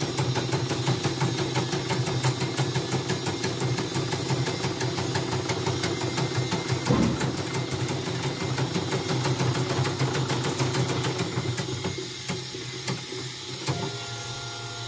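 CNY portable computerised embroidery machine stitching at speed, a fast steady needle rhythm that runs smoothly without a break, showing the repaired machine working again. The stitching stops near the end, followed by a short steady tone.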